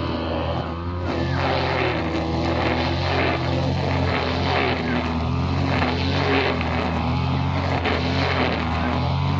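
Small two-stroke engine running steadily, as on a brushcutter or blower used for cutting and clearing grass.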